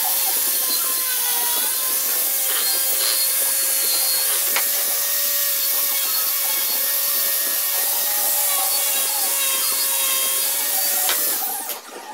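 Angle grinder running against the corner of an OSB panel, rounding the corner off: a steady motor whine with a gritty, hissing abrasion. It stops shortly before the end.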